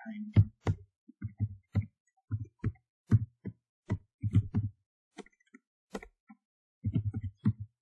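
Computer keyboard typing: short runs of keystrokes, which thin out to a few scattered taps for a second or two near the end before a last quick run.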